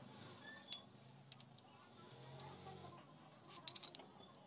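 Faint metallic clicks and clinks as a steel cutting disc is fitted onto a roller-machine shaft and a spanner is set on its nut: single clicks early, then a quick cluster of clicks near the end, over a low hum.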